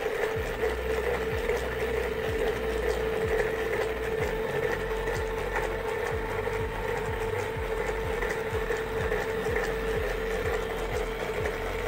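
Homemade motorised vegetable slicer running: a geared 12-volt DC toy-car motor whines steadily as its crank slides a plastic mandoline slicer back and forth, with a knock repeating two or three times a second.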